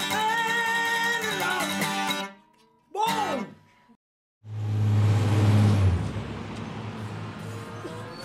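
The end of a blues song, acoustic guitar and singing on a held, wavering note, cut off about two seconds in, then a short falling swoop. After a moment of silence, city traffic noise with a low hum swells in and slowly fades.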